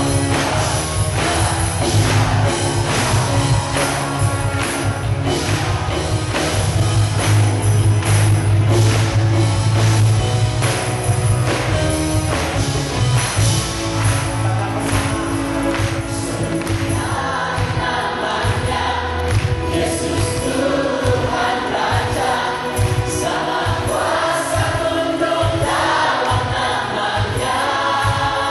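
Live gospel praise-and-worship music, loud, with a steady drum beat and heavy bass. A little past halfway, a group of voices comes in singing along.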